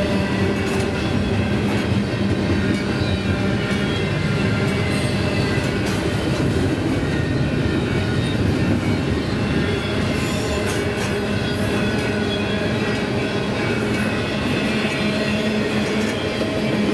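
Intermodal double-stack freight cars rolling past: a steady rumble of steel wheels on rail with scattered clicks and faint squeal from the wheels.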